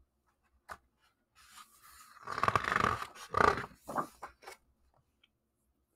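A picture book's paper page being turned by hand: a soft tap, then about three seconds of paper rustling and sliding.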